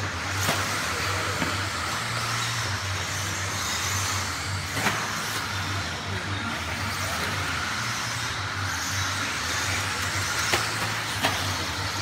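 Electric stock-class RC buggies racing on an indoor dirt track: a steady whir of motors and tyres, with a few sharp clacks as cars land jumps or crash.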